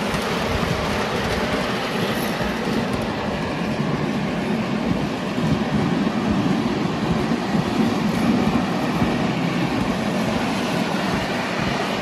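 Battery-electric miniature Class 31 locomotive and riding truck running along the track. The wheels make a steady rumble and rattle on the rails.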